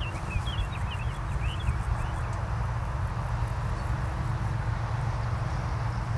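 Steady deep rumble, with small birds chirping quickly over it during the first two seconds.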